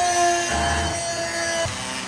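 Small two-stroke engine of a Mini GP pocket bike buzzing at one steady high pitch, which drops away near the end.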